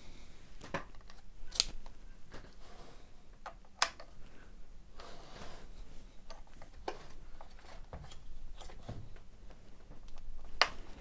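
Scattered sharp clicks and taps of a screwdriver with a Torx TX25 bit being set into the socket-head bolt of a Makita DUC356 chainsaw's guide plate and worked against it, with fainter scraping and handling between; the loudest clicks come about a second and a half in, about four seconds in and near the end.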